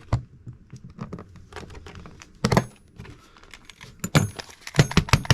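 Clicks, taps and light metallic clinks of a tape measure's plastic case and small screws being handled during disassembly, with a quick run of clicks near the end.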